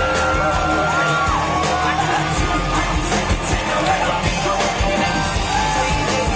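Live electropop band music through a concert PA, with sung vocals over a heavy bass beat.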